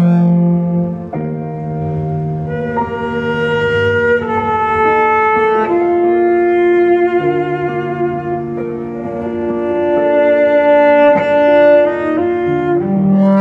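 Bowed cello music: slow, sustained notes, with a higher melody line moving over held lower notes, a few of them with vibrato.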